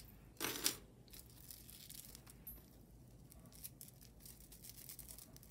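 Faint handling noise: a short rustle about half a second in, then soft small clicks and rustles.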